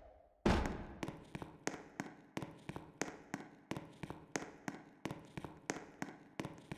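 Fire alarm system sounding between voice evacuation messages: an even run of sharp clicking strikes, about three a second, each with a short ringing tail. A louder strike comes just under a second in, after a brief gap.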